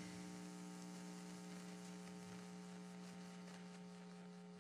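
Faint, steady electrical hum: a low tone with a stack of higher overtones, over a light hiss.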